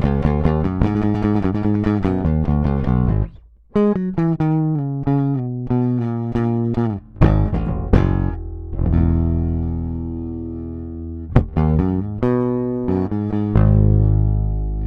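Bass guitar played unaccompanied, showing off the tone of its strings: a quick run of plucked notes, a short stop about three seconds in, then slower phrases with longer held low notes and a few sharp plucks.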